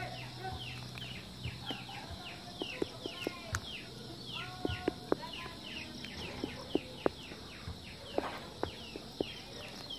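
Chicks peeping over and over: short high calls that fall in pitch, about two or three a second. Scattered sharp clicks and knocks sound above them, and a low hum runs through the first half.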